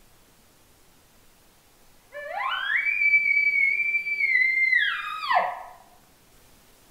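Bull elk bugling: one call that climbs quickly into a high, steady whistle, holds it for about two seconds, then drops off sharply and fades out.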